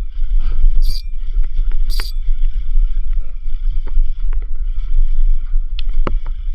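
Wind rumbling on the microphone aboard a small fishing boat at sea, with a steady hiss of water and scattered short clicks and knocks.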